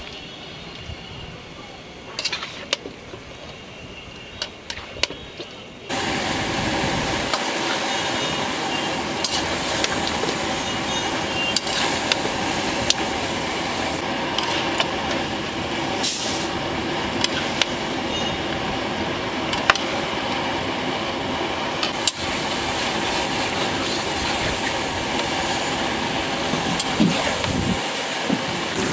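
Chicken pieces frying and sizzling in a large metal kadai while a metal spatula scrapes and knocks against the pan as they are stirred. About six seconds in, the sizzle suddenly becomes much louder and steadier.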